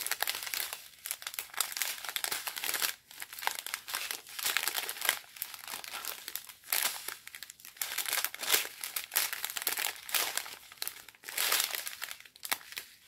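Small clear plastic zip bags of diamond-painting drills crinkling as they are handled, in irregular crackly bursts with short pauses.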